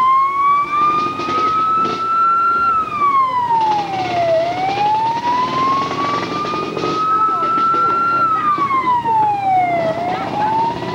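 Emergency vehicle siren wailing. Its pitch climbs slowly over about four seconds, then drops quickly, twice, and starts climbing again near the end.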